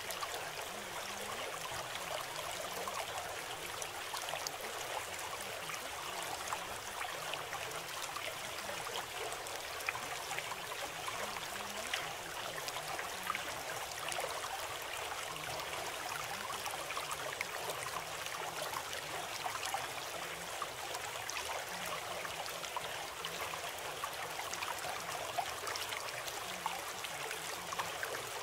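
Flowing water, steady and unbroken, with a fine trickling texture.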